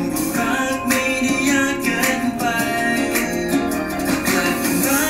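Pop song playing: guitar accompaniment with a male voice singing.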